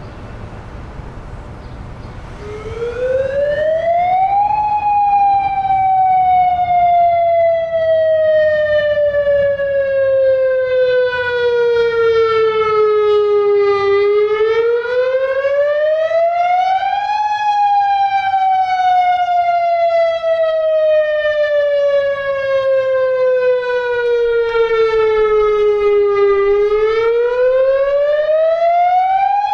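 Federal Signal DSA electronic outdoor warning siren starting up about two and a half seconds in and sounding a slow wail: a quick rise in pitch followed by a long slow fall, repeated, the rising-and-falling pattern of the Attack signal.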